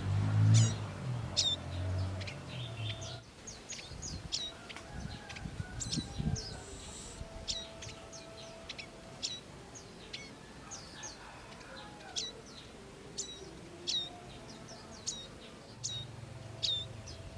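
Prinia (prenjak) calling: sharp, high chirps that drop in pitch, repeated about once a second. A low rumble sounds under them in the first few seconds.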